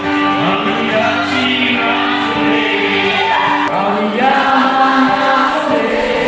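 A man singing a Garo-language song and accompanying himself on acoustic guitar, amplified through a PA.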